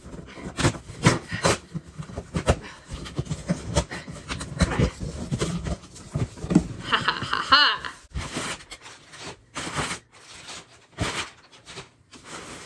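Cardboard shipping box being wrestled open: repeated scraping, tearing and knocking of the cardboard flaps, with straining breaths and a short high-pitched vocal squeal about seven seconds in.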